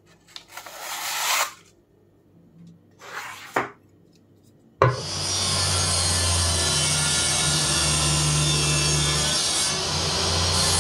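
Two quick scraping strokes of a steel knife blade drawn along an object, then, from about five seconds in, a table saw running steadily and cutting wood.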